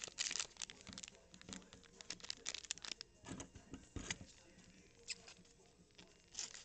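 Foil wrapper of a Topps Chrome baseball card pack crinkling as it is handled, a run of small, irregular crackles. Near the end, scissors start snipping the pack open.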